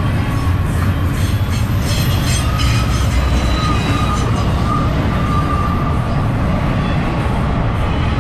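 Double-stack intermodal container cars rolling past close by: a loud, steady rumble of steel wheels on rail, with a thin, wavering wheel squeal riding above it.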